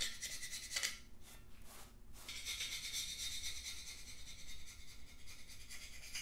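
Hand gasket scraper rasping over the gasket surfaces of a 5.3 LS engine block, taking off old gasket residue. It goes in separate strokes at first, then in a steady run of quick short strokes from about two seconds in.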